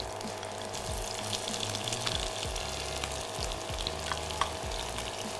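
Sliced shallots sizzling steadily in hot oil in a frying pan, with a few small pops.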